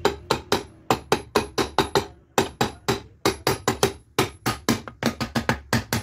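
Steel hammer striking the cast metal end cover of an electric motor in quick, even blows, about four a second with two short pauses, tapping the end shield down over newly replaced bearings.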